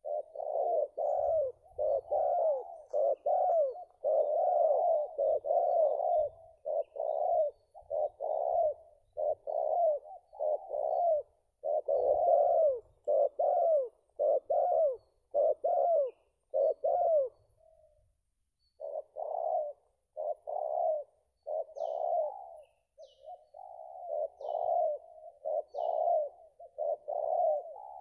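Spotted doves cooing over and over, a steady run of low coo phrases with one short pause about two-thirds of the way through. A few faint high chirps from a small bird come near the end.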